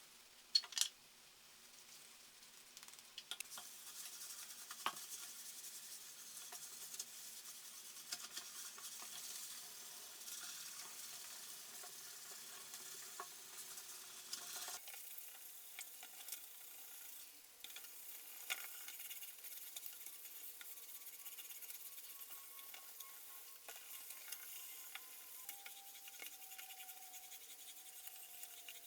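Faint, steady rubbing hiss with scattered light clicks and taps, typical of a cloth pad being worked over wood in shellac French polishing. The background changes abruptly about halfway through, and near the end a faint tone slowly falls in pitch.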